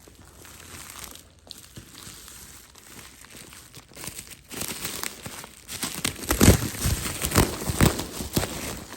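Packing material being handled and pulled open: crinkling plastic and paper with some tearing, getting louder and busier about halfway through.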